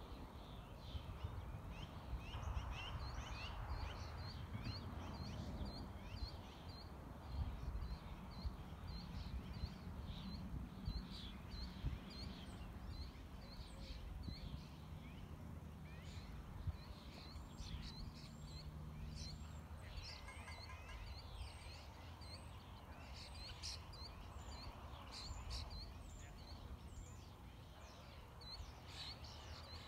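Wind rumbling on the microphone, with birds chirping. A small high chirp repeats steadily about two or three times a second, and a faint low hum comes in for a few seconds in the middle.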